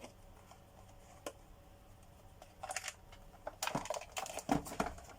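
Plastic vacuum cleaner housing being handled and fitted into place: scattered plastic clicks and knocks with a short crinkling rustle, mostly in the second half.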